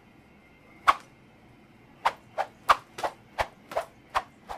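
A string of short, sharp clicks or knocks: one about a second in, then about nine more in an uneven, quickening run from about two seconds in, over a faint steady hum.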